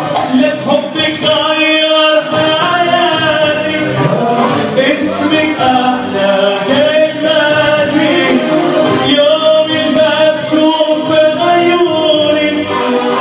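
Live Arabic pop song: a male voice singing with band accompaniment.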